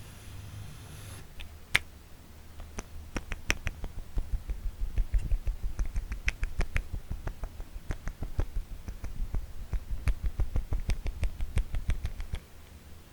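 Hands tapping close to the microphone in ASMR style: fingertip taps with soft thuds beneath. A few scattered taps at first, then a fast, irregular run of taps from about four seconds in that stops shortly before the end.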